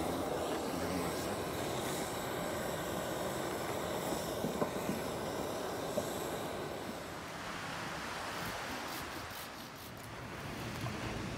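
Handheld butane canister torch hissing steadily as its flame is held to kindling. About seven seconds in the hiss gives way to the quieter sound of a wood fire burning, with a few light crackles.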